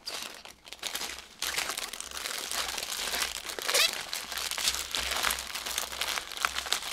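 Clear plastic bags of diamond painting drills crinkling and rustling as they are handled and laid out by hand.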